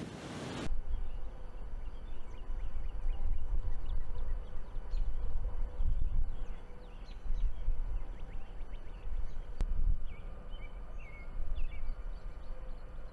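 Loud wind noise on the microphone cuts off abruptly under a second in. It is followed by low, gusty wind rumble on the microphone and scattered bird chirps, which grow clearer near the end.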